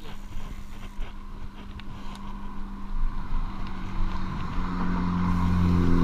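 Mountain bike rolling along a paved road, with rush and wind on the microphone. A low hum grows steadily louder through the second half.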